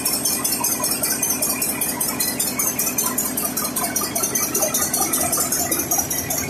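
Very large compressed-air-started diesel generator engine running steadily, with an even, rapid mechanical clatter.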